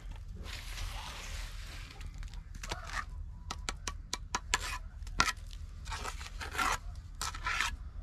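Mason's trowel scraping and spreading mortar on concrete blocks: one long scrape about half a second in, then a run of short scrapes and taps, and more scrapes near the end.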